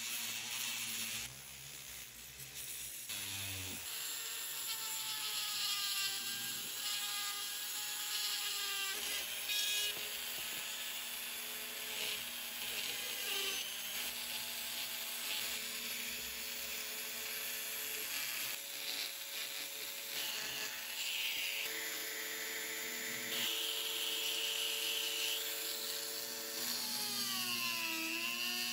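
Dremel 4000 rotary tool on a flex shaft, whining as a sanding disc and then a ball burr grind and sand a wooden skull, with a gritty hiss of abrasion. Its pitch dips and recovers again and again as the bit bites into the wood and eases off. It goes quieter for about two seconds a little after the start.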